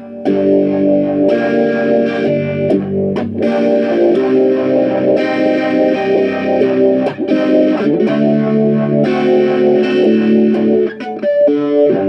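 Electric guitar playing chords through a two-stage phaser pedal with a Zendrive overdrive after it, giving a phased, overdriven tone. The chords are struck anew every second or so, with a short break near the end.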